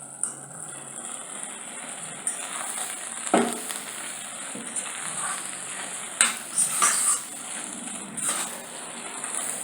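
Instant noodles sizzling in a pot as they are stirred, with a utensil scraping and knocking against the pot several times.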